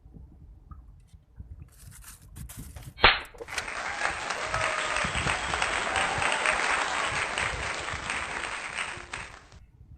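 Applause: a dense burst of clapping lasting about six seconds, starting and stopping abruptly, after a single sharp click about three seconds in.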